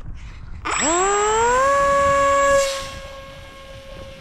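Kerosene-fuelled model jet turbine in an RC L-39 Albatross spooling up at start. A high whine comes in suddenly about a second in, rises quickly in pitch, then holds steady, and grows quieter near three seconds in.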